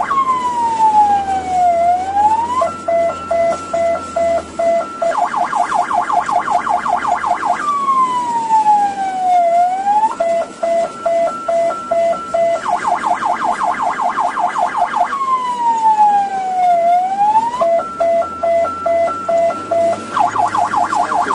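Electronic ambulance siren cycling through its modes: a slow falling wail that sweeps back up, then an alternating high-low two-tone, then a rapid warble. The pattern repeats about every seven and a half seconds.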